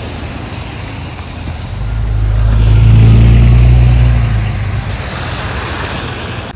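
A road vehicle driving past on the street, its low engine sound swelling to a peak about three seconds in and then fading, over a steady background of traffic noise.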